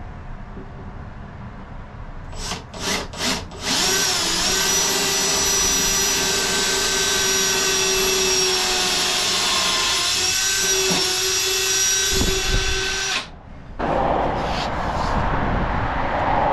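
Cordless drill boring a 1/8-inch pilot hole through a fiberglass boat hull: three short trigger blips, then the drill running steadily for about nine seconds with a whine, stopping suddenly. After it, a steady rushing hiss.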